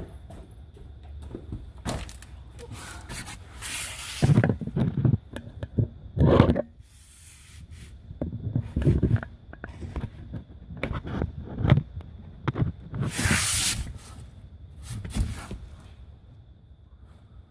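Parts and tools being handled while a jacking rail is bolted on: irregular scraping and rubbing with scattered knocks, the strongest bursts about four, six and thirteen seconds in.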